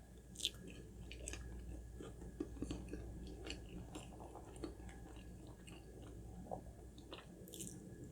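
Close-miked chewing and wet mouth sounds of a person eating, with scattered small clicks and smacks.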